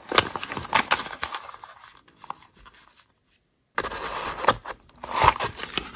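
A cardboard mailer box being handled and slid on a table, with clicks and scrapes. After a short gap of silence midway, scissors cut through the paper band sealing the box, with scraping and rustling.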